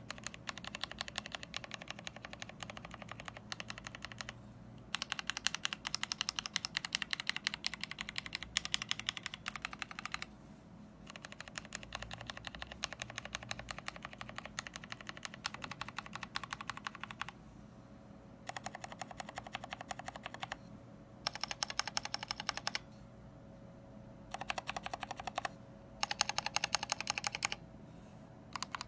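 Kailh Box Red linear switches on a full-aluminium mechanical keyboard being typed rapidly, many keystrokes a second, in bursts with short pauses between them. The sets typed include both fully lubricated (spring and slider) and unlubricated switches.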